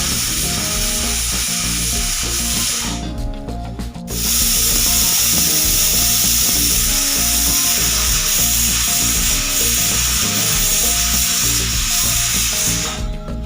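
Pressure cooker whistle: steam escaping past the weight in a loud, steady hiss. It drops away for about a second near the three-second mark, then comes back and runs again until just before the end.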